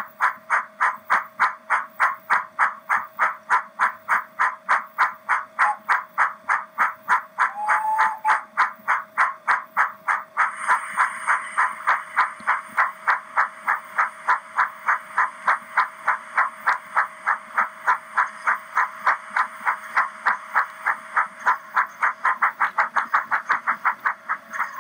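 Steam-exhaust chuffs from a Doehler & Haass DCC sound decoder in an O gauge Terrier tank engine model, played through the model's small speaker as the locomotive runs. The even beat of about three to four chuffs a second grows louder and hissier about ten seconds in, then stops near the end as the locomotive comes to a stand.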